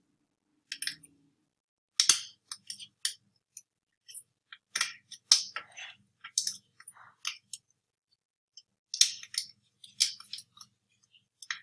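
Hard plastic clicks, taps and short scrapes from handling the Gtech AirRam's mesh filter cover while small pads are pushed into its slots. The clicks come irregularly throughout, the loudest about two seconds in and near the middle.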